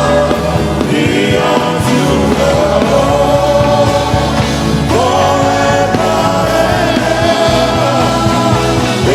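Gospel worship music: singing voices holding long notes, each scooping up into the pitch, over steady sustained low notes.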